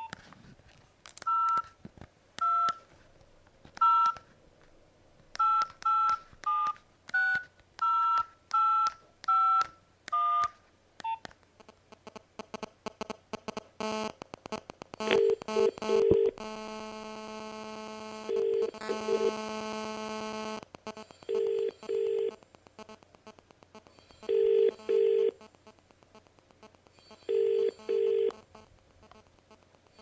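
Nokia mobile phone dialling a number: about eleven two-tone keypad beeps. Then the phone's GSM radio transmitter interferes with the microphone as the call connects, as rapid ticking that thickens into a loud steady buzz for several seconds. After that a double-pulse ringing tone repeats about every three seconds.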